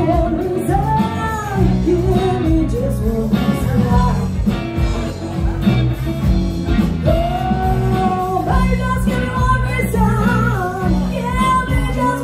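Live rock band playing a song on electric and acoustic guitars and electric bass, with a woman singing the lead vocal.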